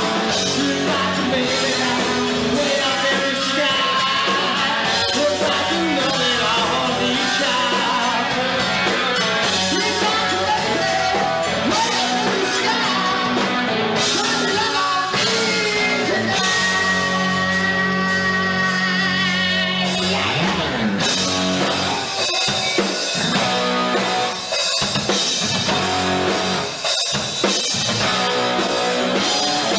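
A live rock band playing: electric guitars through amplifiers, bass and drum kit, with a singer's vocals. A few notes are held steady for several seconds, followed by a downward pitch slide about twenty seconds in.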